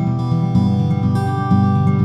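Background music: acoustic guitar, with notes and chords changing about half a second and a second and a half in.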